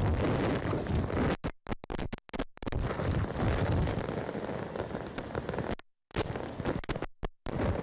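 Hurricane gusts buffeting the microphone with a loud, deep rumble, over the hiss of torrential rain. The sound cuts out to dead silence several times in short gaps, mostly in the first half and again near the end.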